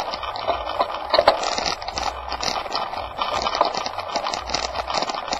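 Dense, irregular crackling rattle and crunching from travel over a rough gravel dirt lane: grit under the wheels or feet and the camera shaking, over a low wind rumble on the microphone.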